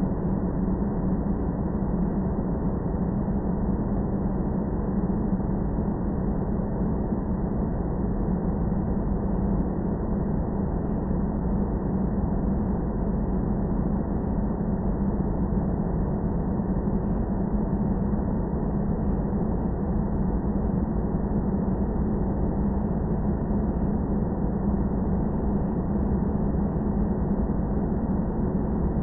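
Airplane ambient noise: a steady, even low drone that holds at one level without any change.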